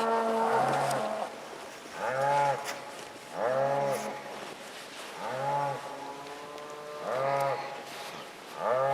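Cattle mooing: a run of short bawling calls, each rising and falling in pitch, repeated about every one and a half to two seconds.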